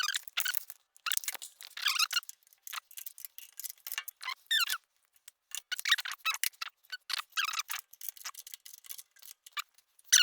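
Open-end wrench working rusted bolts on a small engine: irregular metal clicks and short squeaks of steel on steel.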